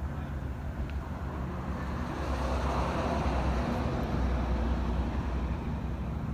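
Steady low engine hum with a rushing swell that builds and fades in the middle, like a vehicle running close by.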